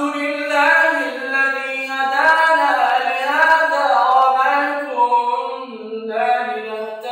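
A man chanting the Quran in melodic tajweed style, with long, ornamented notes that glide up and down in pitch. There are short pauses for breath near the middle and near the end.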